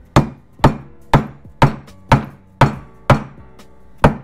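Steady hammer blows, nine in a row about two a second, each a sharp knock with a short ring: a bearing being driven into a Yamaha YZ426F engine case that was not hot enough for it to drop in freely.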